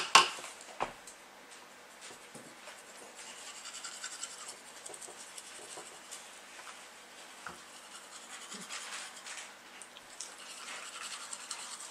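Toothbrush scrubbing teeth with tooth soap: an uneven, scratchy brushing sound. There are a couple of sharp knocks right at the start.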